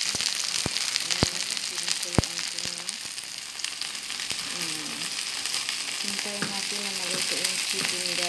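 Marinated chicken breast frying, a steady sizzle and crackle, with a few sharp knocks in the first two seconds.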